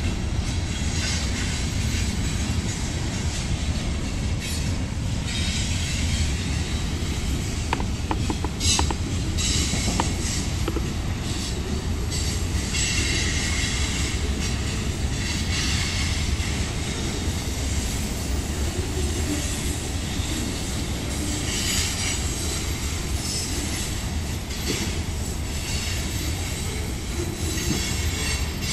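Freight cars of a Canadian Pacific manifest train (tank cars and covered hoppers) rolling past at steady speed: a continuous rumble and rattle of steel wheels on the rails with a hiss above it. A few brief high wheel squeals come about eight to ten seconds in.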